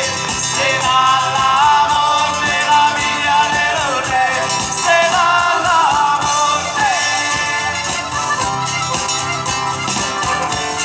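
Live southern-Italian folk band playing: accordion and guitars with a tambourine jingling, and a melody line with sliding notes in the middle.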